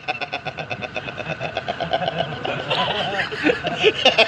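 A man laughing hard, a long fast run of rhythmic ha-ha pulses.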